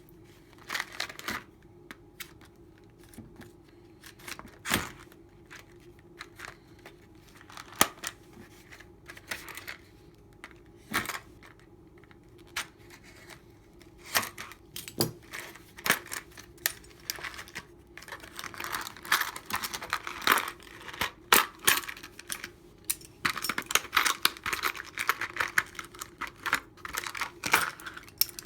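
Lock pick raking the pin stack of a Master Lock hasp-and-staple lock: small metallic clicks and scraping, scattered at first, then quick and dense for the last ten seconds or so.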